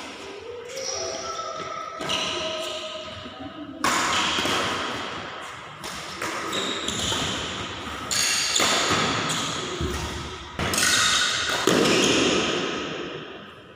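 Badminton rally: racket strikes on the shuttlecock, a sharp hit about every one and a half to two and a half seconds, each echoing in a large hall.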